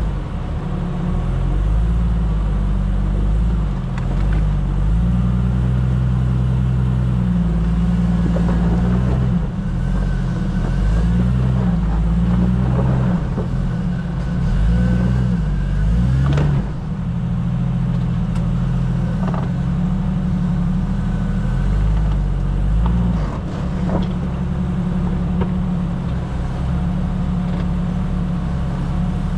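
A 4x4's engine running low and steady as it crawls up a rocky dirt trail, with a few short knocks and clatter along the way.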